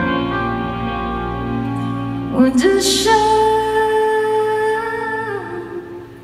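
Live pop ballad with band accompaniment: a female singer slides up into one long held note about halfway through, and the low notes drop away as the music grows quieter near the end.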